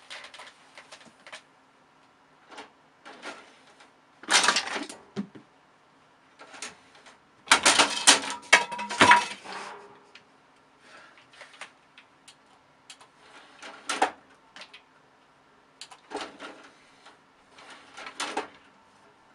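Intermittent clattering and knocking, with loud bursts about four seconds in and again from about seven and a half to nine and a half seconds in, between scattered quieter clicks.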